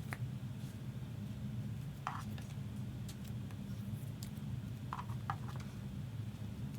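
A few faint light clicks and taps of trading cards being handled, over a steady low hum.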